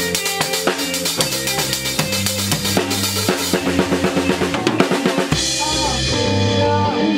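Rock band playing in rehearsal: drum kit with bass drum, snare and cymbals over electric bass and guitars. The drum hits come faster in a run, then stop about five seconds in, leaving a cymbal and held guitar chords ringing.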